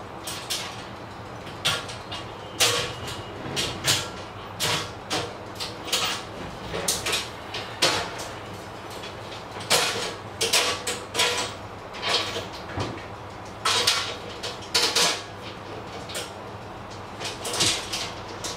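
Irregular metal clanks, clinks and rattles as the frame and shelves of an iron tattoo trolley are handled and fitted together.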